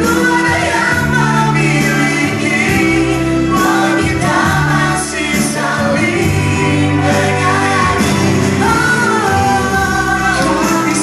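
A man and a woman singing a slow pop duet into microphones over a backing track with sustained bass notes; the held vocal lines pass between them.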